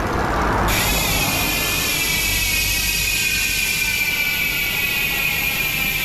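Weapon Savage six-pawl mountain-bike rear hub freewheeling, its pawls fitted with stiffer-than-stock springs. The pawls' rapid clicking merges into a loud high buzz that starts suddenly about a second in and sinks slowly in pitch as the wheel slows.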